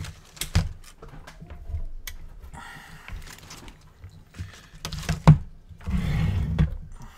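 Hands handling small objects on a workbench: a run of clicks and knocks with two stretches of rustling, the loudest knock about five seconds in.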